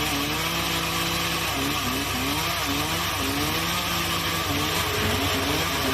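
Two-stroke chainsaw revving while cutting up a fallen tree: the engine climbs to a high pitch, holds, drops back and revs up again several times.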